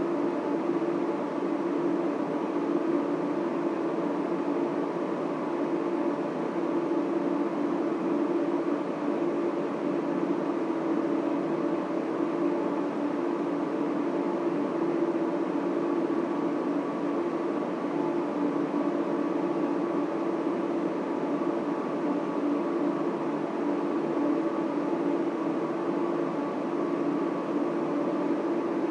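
Data center equipment running: a steady drone of server and cooling fans, with a hum of several steady tones and no change throughout.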